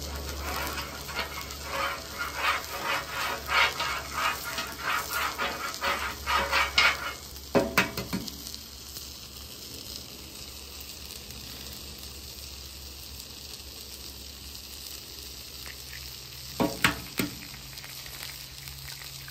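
A metal spoon is scraped back and forth across a hot flat-top griddle through sizzling oil, about two or three strokes a second, for the first seven seconds. Then an egg is cracked with a sharp double tap and fries with a steady, quieter sizzle. A second egg cracks with another sharp tap near the end.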